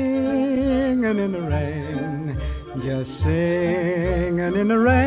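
Background music: a song with long held notes that waver in pitch over a bass beat.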